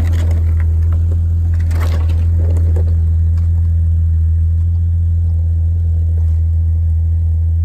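An engine idling with a steady low drone, with a few brief rattles in the first few seconds.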